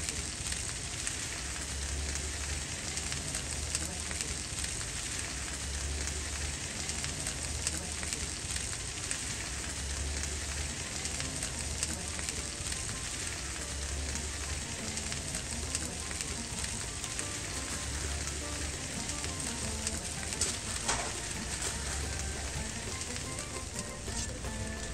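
Food sizzling on a hot flat-top griddle: a steady frying hiss, with a low hum that swells and fades underneath.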